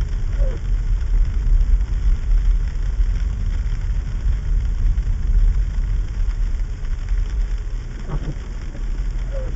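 Steady low rumble of a car driving slowly over a sleet-covered road, heard from inside the cabin. A windshield wiper sweeps across the glass once about eight seconds in.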